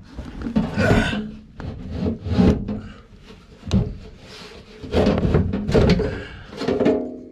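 Sheet-metal furnace blower housing scraping and bumping against the cabinet as it is worked back into place, in a series of irregular rubs and knocks.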